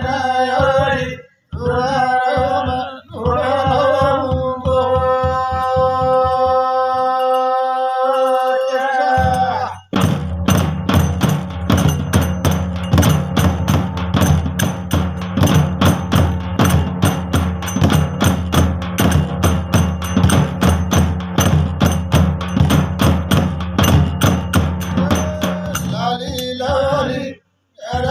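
Men singing a devotional chant and ending on a long held note. Then, about ten seconds in, large rope-laced drums come in with a fast, steady beat that carries on until just before the end.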